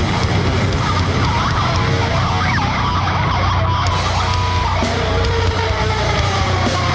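Harsh noise music from a grindcore noise demo: a loud, unbroken wall of distorted guitar noise over a steady low hum, with wavering feedback squeals that slide in pitch, one falling slowly near the end.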